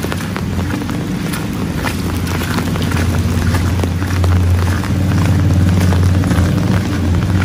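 Rain falling with many scattered drop ticks, over a strong low rumble that swells in the second half.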